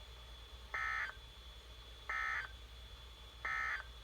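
Three short bursts of warbling two-tone digital data from a weather radio, the SAME/EAS end-of-message code that closes a NOAA Weather Radio required weekly test. Each burst lasts about a third of a second, and they come a little over a second apart over a faint hum.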